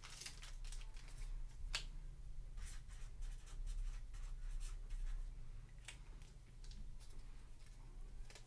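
Faint handling noises: light clicks and rustles of trading cards and plastic card holders being handled, over a low steady hum.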